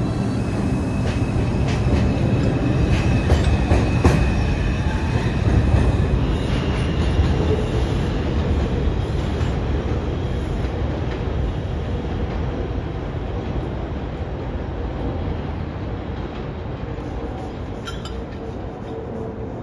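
New York City subway train running on the rails: a steady rumble with a thin wheel squeal and a couple of sharp clacks a few seconds in, slowly fading as the train moves away.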